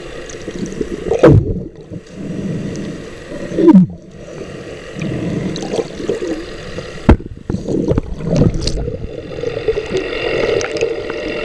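Underwater sound picked up by a camera below the surface: water gurgling and rushing over the housing over a steady hum. Two loud falling swooshes come about one and four seconds in, and a sharp knock about seven seconds in.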